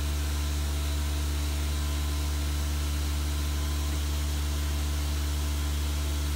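A steady, unchanging low hum with a faint buzz of higher overtones over a light hiss.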